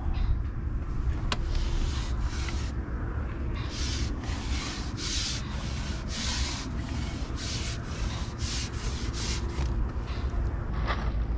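Wind buffeting the microphone with a steady rumble, while bursts of hissing rustle come and go, wind-blown bankside grass. The rustle is busiest in the middle of the stretch.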